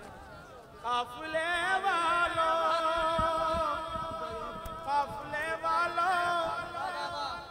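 Male naat reciter singing one long, held note with vibrato and wavering ornaments on the word 'qafile' ('caravan'). The note starts about a second in.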